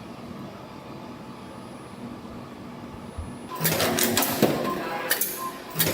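EF-620 CNC extension spring machine humming steadily, then about three and a half seconds in starting to run: a rhythmic clatter of sharp clicks and knocks as it coils wire and forms the hooks, with each cycle repeating about every three-quarters of a second.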